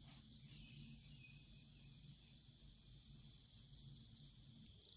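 Insects chirping in a faint, steady, high-pitched chorus.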